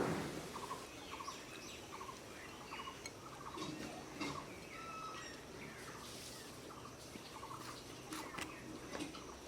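Birds calling: a short trilled call repeats about twice a second, with scattered higher chirps around it. There is a sharp, loud sound right at the start.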